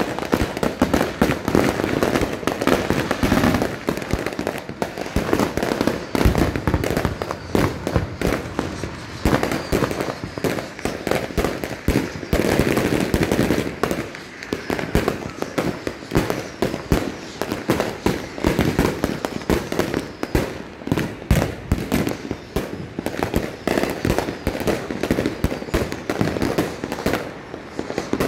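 Many consumer aerial fireworks and firecrackers going off at once: a dense, unbroken crackle of overlapping bangs and pops, several every second.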